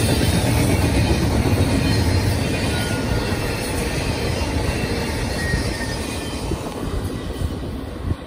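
Freight cars of a Union Pacific intermodal train, loaded with highway trailers and double-stacked containers, rolling past with a steady rumble and clatter of steel wheels on the rails. The sound fades over the last few seconds as the end of the train pulls away.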